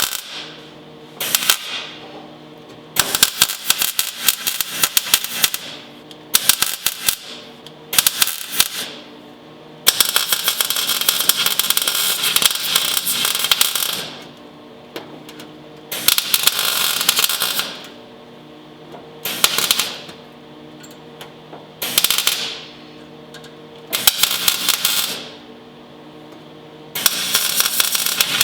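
MIG welder laying stitch welds to fill a large gap in sheet steel: about a dozen bursts of steady arc crackle, most under a second or two, with two longer runs of several seconds, separated by short pauses. A steady low hum runs underneath.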